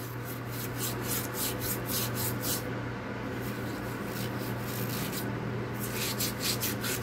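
Steel wool pad scrubbing the inside of a pressure booster pump's metal housing, quick back-and-forth scratchy strokes about four or five a second, easing off for a few seconds in the middle. It is scouring out rust and corrosion so the pump's impeller does not seize.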